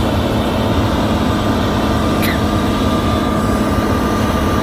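Combine harvester's engine and threshing machinery running steadily: a loud, even drone with a faint steady high whine.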